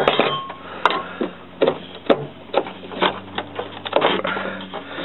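Irregular clicks and knocks, roughly two a second, of a Nissan Versa's fuel pump assembly and its plastic and metal parts being handled and seated back into the fuel tank opening, over a faint steady low hum.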